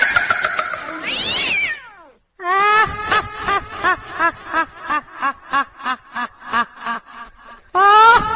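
Ghost sound effect: a high shrieking cry that swoops up and then slides down, then after a short gap a fast, high-pitched cackling laugh of about four notes a second that grows shorter and fainter. A new loud cry starts near the end.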